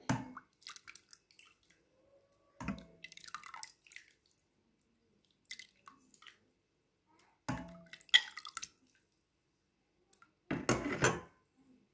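A steel ladle scooping chalop, a thin sour-milk drink with chopped greens and cucumber, out of a steel bowl and pouring it into small bowls. Liquid splashes and drips come in separate short bursts, mixed with knocks of the ladle on the bowl, and the longest pour falls near the end.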